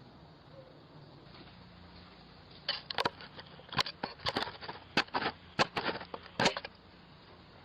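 A burst of about ten sharp knocks and bangs over some four seconds, close to the microphone of a Ring doorbell camera: someone striking the doorbell camera. Before and after the knocks there is only a low steady hum.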